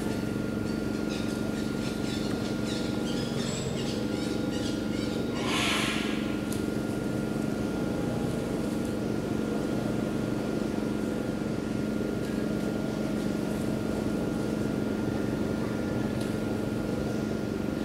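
Steady low hum with a thin steady high tone over it, and a brief hiss about six seconds in.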